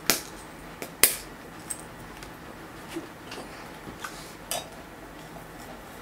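Tea things being handled: two sharp clinks, one right at the start and a louder one about a second in, then a few lighter taps and clinks of cup and tea steeper.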